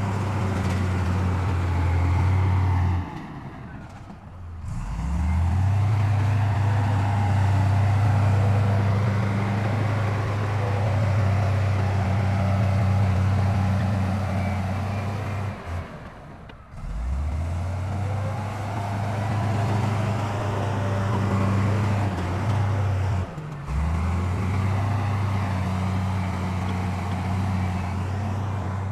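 Heavy diesel engine of earthmoving machinery running steadily with a deep, even hum and mechanical clatter above it, broken by three brief dropouts where the sound cuts off and comes back.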